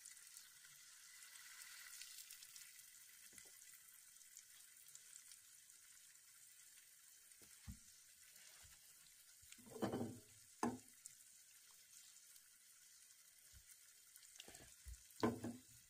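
Boiled eggs frying in a shallow layer of spiced oil in a pan, a faint steady sizzle. A few short knocks and clinks of a fork against the pan and eggs, loudest about ten seconds in and again near the end.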